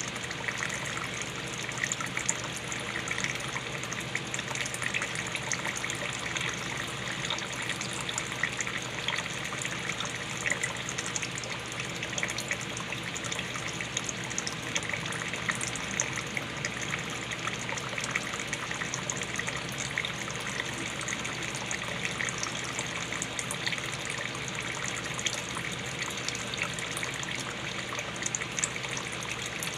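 Water pouring steadily in a continuous stream, with fine splashing.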